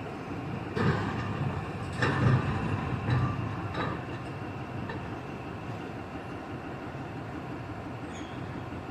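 Heavy machinery running with a steady low rumble, with four sharp clanks in the first four seconds before it settles.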